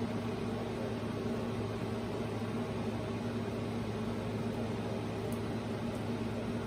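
Steady low mechanical hum with a faint hiss, even throughout, with a couple of faint light ticks late on as fingers handle the cassette deck mechanism.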